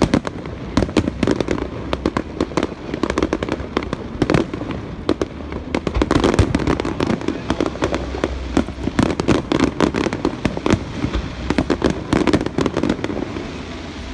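Aerial fireworks display going off: a dense, irregular barrage of sharp cracks and bangs over a low rumble.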